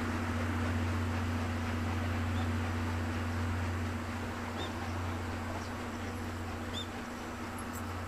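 Steady low rumble of a departing steam-hauled passenger train, slowly fading as it pulls away. Short high chirps repeat about every two seconds over it.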